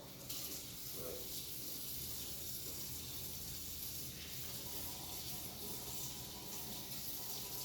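Kitchen tap running steadily into a sink while hands are washed under it.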